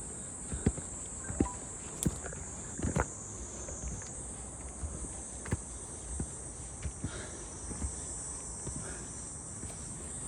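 Steady high-pitched drone of insects, with irregular footsteps and small knocks of hikers climbing.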